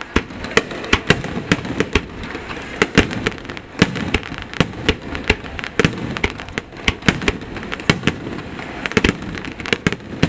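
Aerial firework shells bursting in a dense finale barrage: irregular sharp bangs, several a second, over a continuous rumble.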